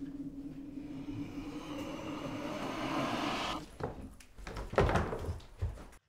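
A low steady drone that swells into a rising, building crescendo, cut off suddenly about three and a half seconds in, followed by a few dull thuds.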